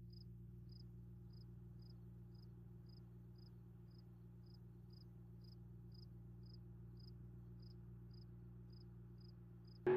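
A cricket chirping in an even rhythm, about two short chirps a second, over a steady low hum.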